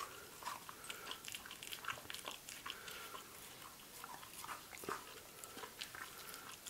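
An Australian Cattle Dog biting and chewing honeydew melon: a faint, irregular run of small clicks and bites.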